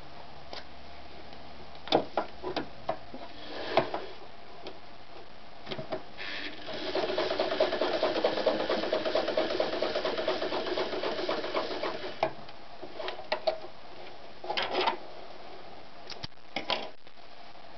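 Gritzner 537 sewing machine (Janome-built) running for about six seconds in the middle, stitching through leather-type material with a rapid, even chatter of needle strokes. Before and after, short clicks and knocks from handling the work at the machine.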